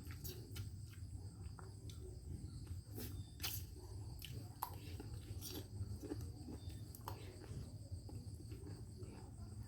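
Steady high insect drone over a low hum, with scattered soft clicks.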